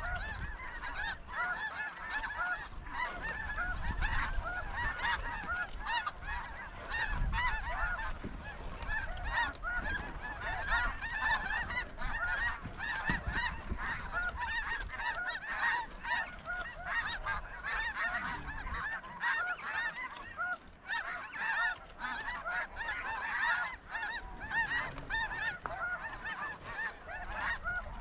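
A large flock of snow geese calling: a dense, unbroken chorus of many overlapping high honks.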